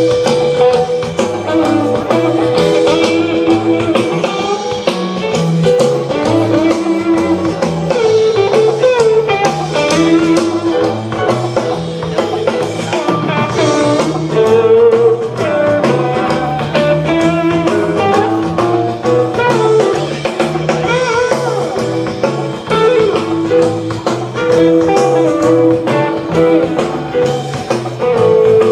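A rock band playing a live instrumental jam: electric guitar over a walking bass line and drum kit in a steady groove.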